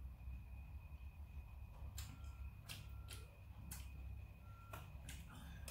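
Soft, quiet eating sounds from sliced kakri melon, a handful of crisp clicks from chewing and from the knife and plate, starting about two seconds in. Under them runs a faint steady hum with a thin high whine.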